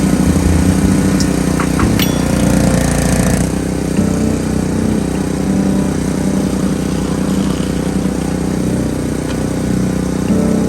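Gas-engine pressure washer running steadily, with a loud hiss of spraying water from the surface cleaning that drops away about three and a half seconds in.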